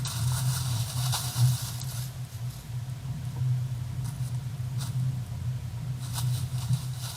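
A steady low hum with scattered faint rustling crackles.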